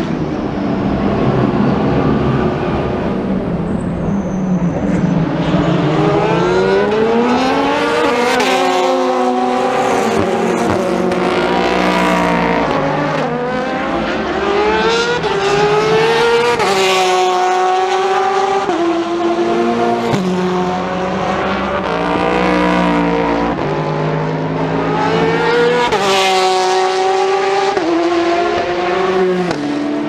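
Endurance race cars accelerating hard past the trackside, one after another. Each engine climbs in pitch and drops back at each upshift as it works through the gears.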